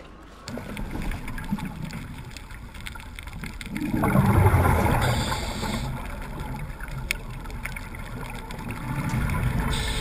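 Low running noise of a boat at sea, then from about four seconds in, underwater scuba breathing through a regulator: exhaled bubbles rush and gurgle loudly, with short hisses of inhaled air twice.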